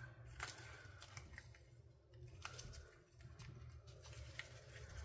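Faint scattered clicks and rubbing as a flexible silicone mold is flexed and peeled to break the seal around a cured resin piece and release it.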